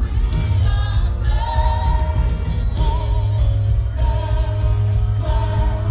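Music: a song with a singing voice over heavy bass.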